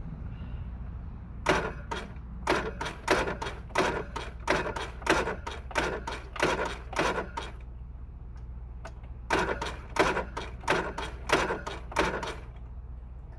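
John Deere 16 HP engine being cranked over without firing, in two attempts, each stroke heavy and slow at about two a second as it comes up on compression. The owner suspects too much compression from a decompression mechanism that is not working.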